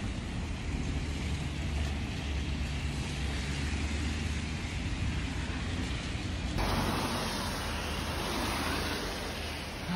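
Road traffic on a wet highway: a steady low rumble of passing cars with tyre hiss on the wet road. The sound changes abruptly about six and a half seconds in.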